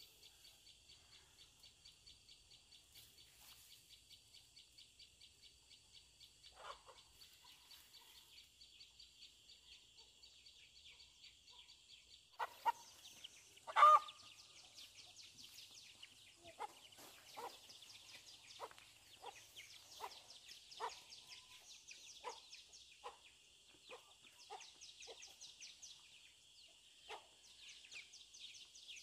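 Chickens clucking: short calls repeated about once a second from about halfway in, with one loud squawk just before they start, over a steady high-pitched trill.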